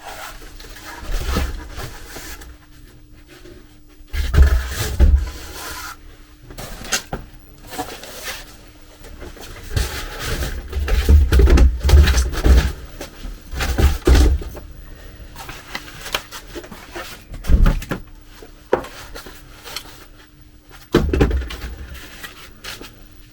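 Printer packaging handled by hand during unboxing: irregular rustling and scraping of cardboard and packing material, with several dull thumps as parts are lifted out and set down.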